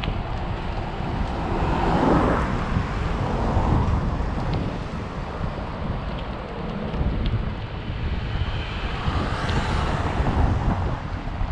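Wind buffeting the microphone of a camera on a moving bicycle, an uneven low rumble over rushing road noise.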